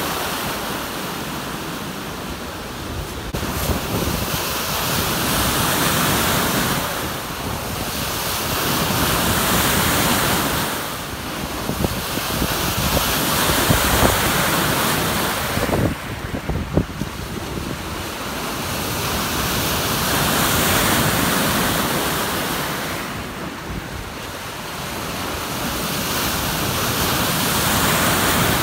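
Breaking whitewater of a Wavegarden machine-made pool wave rushing, swelling and fading every few seconds, with wind buffeting the microphone.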